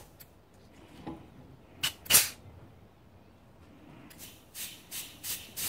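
Compressed air fed in short hissing blasts through a banjo-bolt adapter into a motorcycle brake caliper to push its pistons out. One louder blast comes about two seconds in, then a run of short blasts, about three a second, from about four seconds in.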